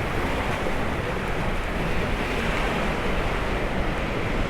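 Sea surf breaking and washing in, heard as a steady, even rush, with wind buffeting the microphone.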